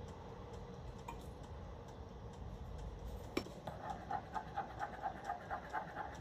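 Metal teaspoon stirring coffee in a ceramic mug: one sharp tap against the cup a little past halfway, then a steady clinking against the side, about five times a second.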